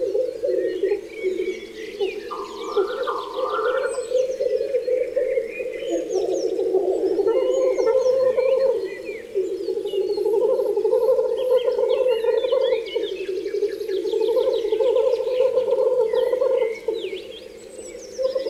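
A dense chorus of frogs, many rapid low trills overlapping without a break, with several birds chirping and singing over it.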